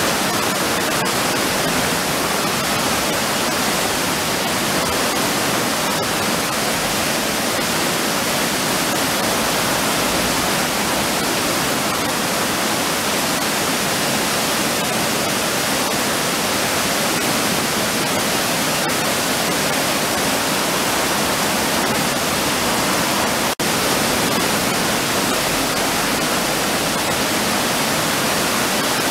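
River water rushing over a low two-step weir, a constant, even roar of white water.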